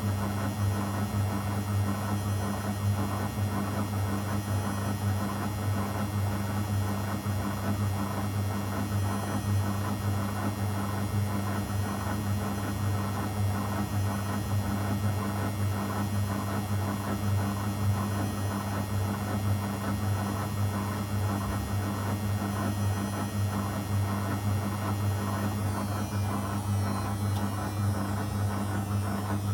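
Zanussi FL984CN front-loading washing machine running on a 35° program, giving a steady low hum without breaks.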